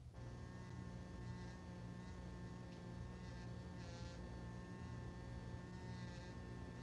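Steady electrical hum of a room, with several constant tones over a low buzz. Faint brief scratchy hisses come about a second in, around four seconds and near six seconds.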